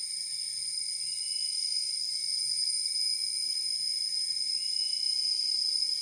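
Steady, high-pitched insect drone: several insects calling at once on different pitches, unbroken throughout.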